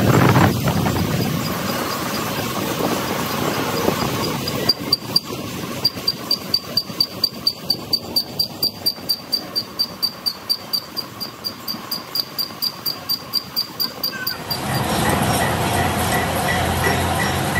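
Metal lathe turning a large compressor crankshaft. From about five seconds in, a sharp tick repeats evenly about four times a second, then gives way near the end to a louder, steady running noise.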